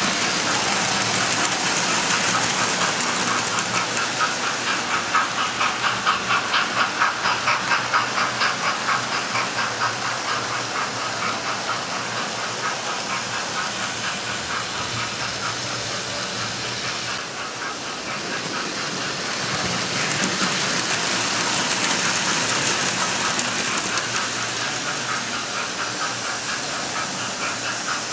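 Model trains running on a model railway layout: a sound-fitted model steam locomotive's speaker gives a steady hiss with a rhythmic chuff, over the running clatter of the models on the track. The chuffing is strongest a few seconds in, eases off and swells again later.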